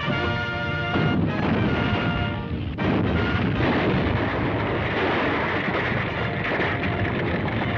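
Dramatic orchestral cartoon score overlaid with a heavy, continuous rumbling sound effect. The rumble swells about three seconds in and drowns out the held orchestral notes.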